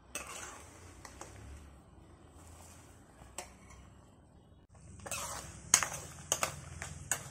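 Cashews, almonds and dried red chillies frying in sesame oil in a kadai, with a low sizzle that grows louder about five seconds in. A metal spoon stirs them, clinking and scraping against the pan a few times near the end.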